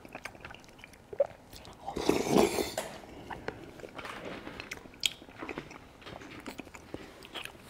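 Eating thick yogurt: soft, wet mouth sounds of swallowing yogurt off a wooden spoon, with small clicks and one louder, longer noise about two seconds in.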